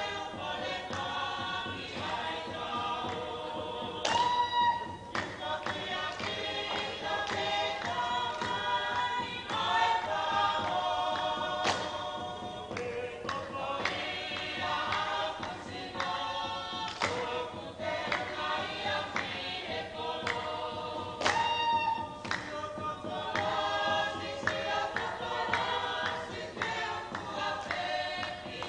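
Group of performers singing a chant in unison for a seated dance, with a few sharp hand claps standing out above the singing.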